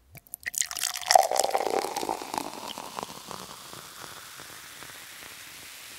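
A burst of crackling and spattering, densest in the first couple of seconds, that fades into a steady hiss.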